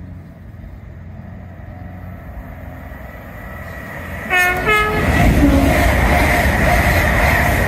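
LNER Azuma high-speed train approaching and running through a station at speed. About four seconds in it sounds two short horn notes, and then the rushing rumble of the passing train grows loud.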